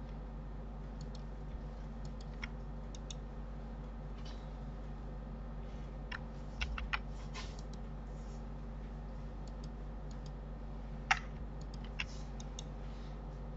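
Scattered clicks of a computer keyboard and mouse: a few light taps, a short cluster about six to seven seconds in, and the loudest single click about eleven seconds in. A steady low electrical hum runs underneath.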